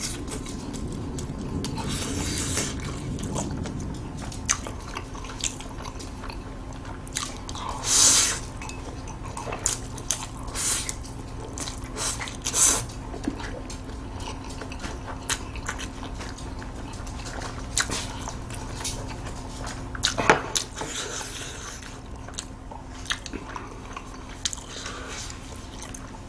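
Close-miked chewing and biting of spicy black-bean instant stir-fried noodles (jjajang buldak ramyeon), a run of small wet mouth clicks with a few louder wet sounds about a third of the way through.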